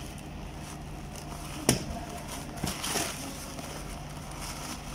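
Handling noise from a knife and a ferrite transformer core: one sharp click a little under two seconds in, then a short crackly rustle about a second later, over a steady low electrical hum.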